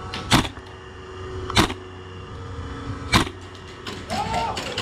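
Airsoft gun firing single shots: three sharp cracks about a second and a half apart.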